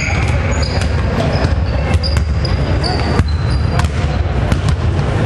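Basketball game noise on a hardwood gym floor: sneakers squeaking in short high chirps and a ball bouncing in scattered knocks, over a steady low rumble.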